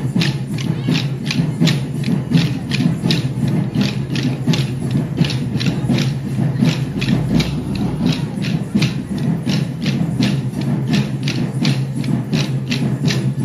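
Wooden kolatam dance sticks clacking together in a steady rhythm, about three strikes a second, as a group of dancers strikes them in time, over accompanying music.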